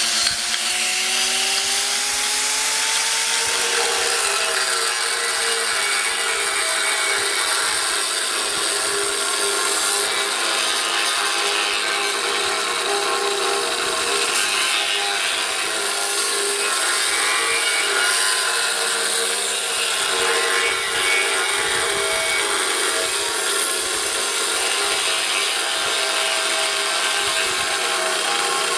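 Electric angle grinder with an abrasive cutoff wheel cutting steel plate: a steady grind, with the motor's whine rising slightly in pitch over the first few seconds as the wheel bites in.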